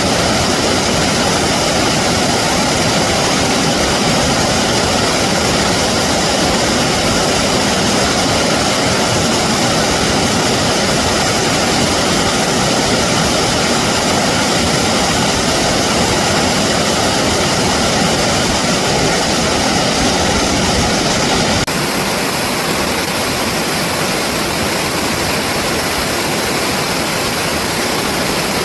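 Steady rushing of flowing water played in reverse. Its tone changes abruptly about three-quarters of the way through.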